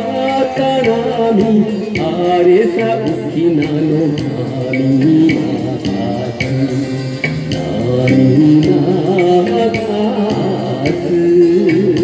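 Karaoke backing track of a Japanese song in a Taiwanese-language version, with a steady beat and a wavering melody line, sung over into a microphone and played through a PA speaker.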